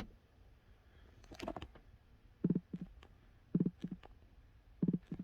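A phone's vibration motor buzzing in three double pulses, about a second apart, with a few faint taps before it.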